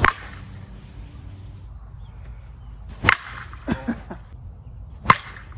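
Composite slowpitch softball bats cracking against pitched softballs, three sharp hits: one at the start, one about three seconds in and one near the end.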